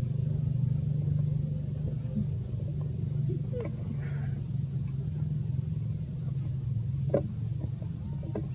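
Steady low engine hum, with a few short high calls about three and a half and seven seconds in.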